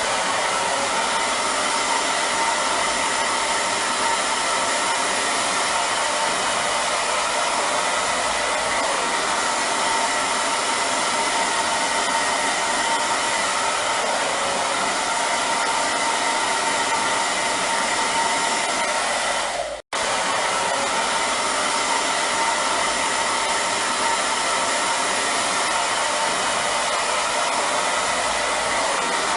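Hair dryer running steadily: an even rush of blown air with a faint motor whine, broken once about twenty seconds in by a split-second gap.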